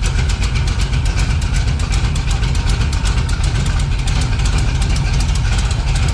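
Jeep CJ engine with a Holley carburettor running steadily with an even, rapid pulse, just after a cold start with no choke, after sitting unused since November and still warming up.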